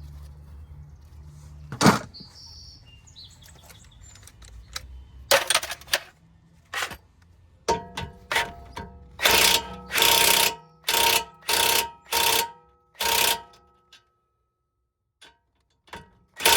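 Hand tools on the nut of a new tie rod end in a car's front suspension: a sharp click about two seconds in, then around a dozen short, loud metallic rattling bursts with a ringing tone as the nut is run down and tightened.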